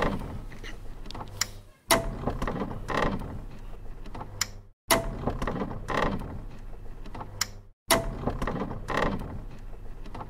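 Edited soundtrack bed of mechanical clicking and creaking that repeats about every three seconds over a steady low hum.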